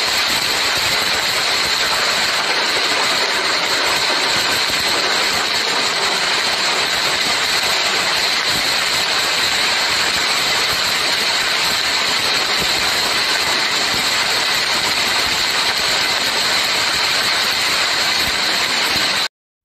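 Heavy rain falling steadily, a loud even hiss that cuts off abruptly near the end.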